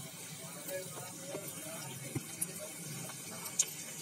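Onion pakoda batter frying in hot mustard oil in a wok: a steady sizzling bubble, with a couple of sharp pops of spattering oil.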